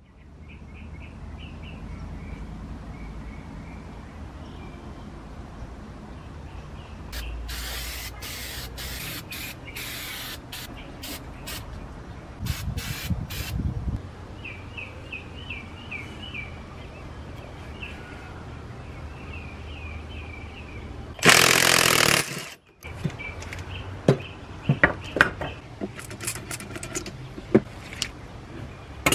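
Coilover suspension parts being handled and taken apart on a workbench: scattered clicks and knocks of metal parts and tools, several short hissing bursts, and one louder hiss of about a second past the middle. Birds chirp in the background.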